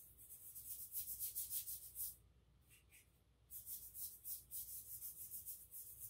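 Watercolour paintbrush scrubbing back and forth on wet paper: faint, quick, hissing strokes, several a second, with a pause of about a second just past the middle.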